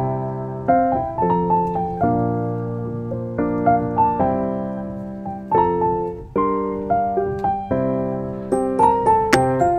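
Background piano music: a gentle melody of single struck notes over sustained lower chords. A few sharp clicks sound near the end.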